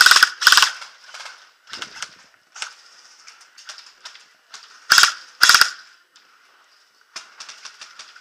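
Airsoft guns firing in short bursts of rapid shots, with the loudest bursts at the start and about five seconds in. A quicker string of shots comes near the end.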